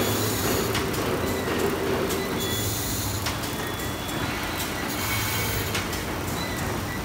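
Chovyting CW-800HCB isothermal bag cutting machine running: a steady mechanical hum of rollers and film feed, with sharp clicks recurring every second or so as it cycles.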